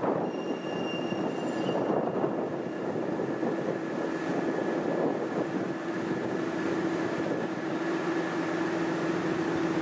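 SM42 diesel locomotive running as it hauls a passenger train slowly out of the station, a steady rumble with a low engine hum that grows louder from about halfway through as it approaches. A brief thin high squeal sounds about a second in.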